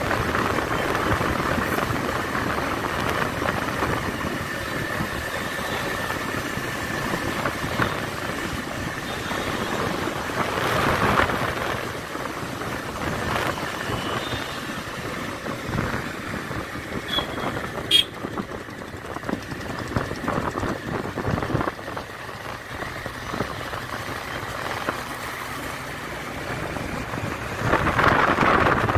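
Wind rushing over the microphone of a moving two-wheeler, with engine and road noise underneath. It swells louder about 11 seconds in and again near the end, and there is one sharp click about 18 seconds in.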